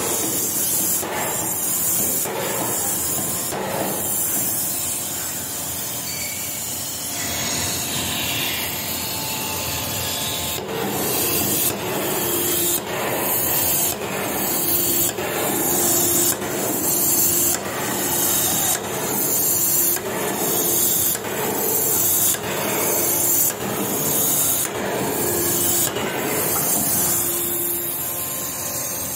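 3-ton C86-75 electro-hydraulic forging hammer striking a red-hot workpiece in a steady series of blows, a little more than one a second. There are a few blows at the start, a pause of several seconds, then a long even run that stops near the end. A steady hiss runs underneath.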